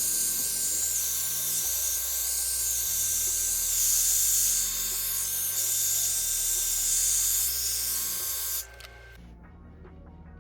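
Hot air dryer brush running: an even, high-pitched rush of blown air with a steady motor whine, switched off suddenly near the end. Background music plays underneath.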